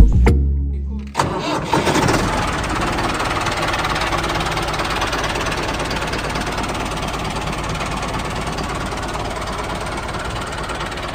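Tractor engine starting about a second in, after a short bit of music cuts off. It then runs steadily as the tractor drives.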